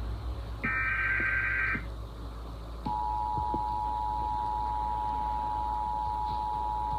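Emergency Alert System tones: the last burst of the SAME header's screechy digital data signal, then about a second later the steady two-tone EAS attention signal starts and holds on.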